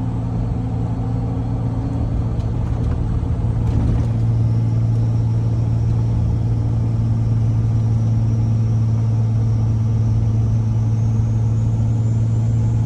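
Turbocharged engine running at a steady speed. A faint high whine comes in about four seconds in and creeps slightly up in pitch.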